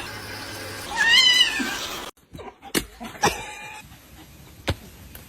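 A domestic cat meows once about a second in, a call that rises then falls. A few sharp clicks or knocks follow after a brief dropout.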